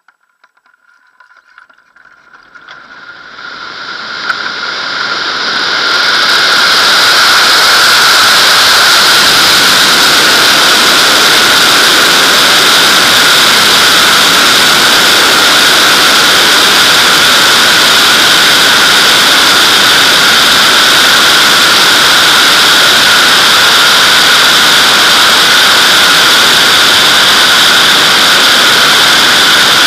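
Wind rushing over a camera mounted on a Nimbus-2 glider's fuselage during a winch launch. It swells from near silence over the first six seconds as the glider accelerates, then holds as a loud steady rush with a whistle in it.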